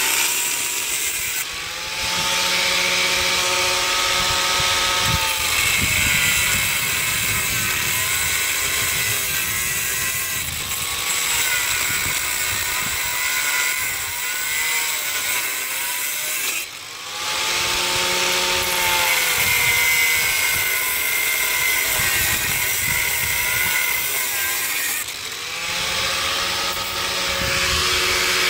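Angle grinder cutting through a steel pipe, the stub of an old basketball hoop post set in concrete. The motor whine sags and recovers as the disc bites, and the tool eases off briefly three times, about two, seventeen and twenty-five seconds in.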